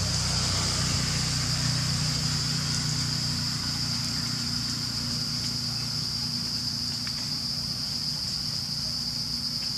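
Steady high-pitched drone of insects in the forest, with a low steady motor hum underneath that eases off a little after the first couple of seconds.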